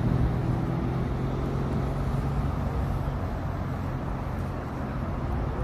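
Steady low hum of a motor vehicle's engine running, with a wash of traffic noise.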